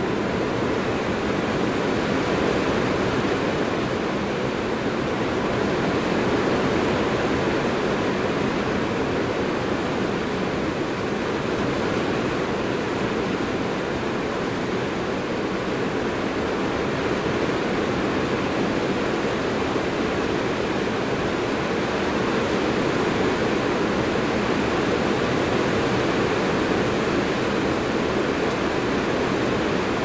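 Strong rain falling steadily on a metal roof, heard from inside underneath it as a dense, even rush with no breaks.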